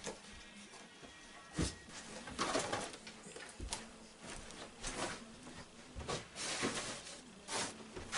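Footsteps and the rustle of a large duffel bag as it is carried across a room: soft, irregular knocks with brushing and rustling between them.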